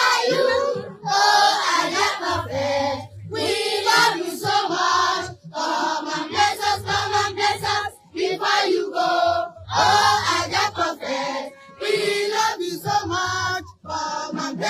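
A choir singing a song over music with a bass line, in phrases of a second or two separated by short breaks.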